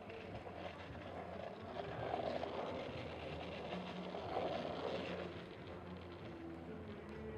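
Outdoor street ambience: a steady noisy hiss that swells twice, about two seconds and again about four and a half seconds in.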